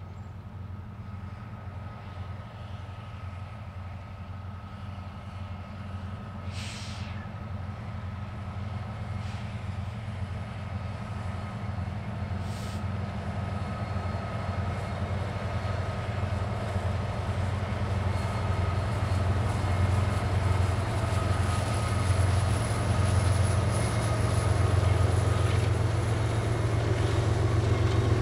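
Diesel-electric freight locomotives approaching on the main line: a steady, deep engine drone that grows steadily louder as the train draws near.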